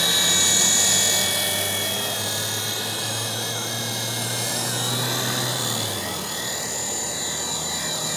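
WLToys V915 scale RC helicopter, fitted with an Esky 370 motor, in low flight: a steady high electric motor and gear whine over the low hum of the rotor. About six seconds in the low hum drops away and the whine starts to waver in pitch as the throttle changes.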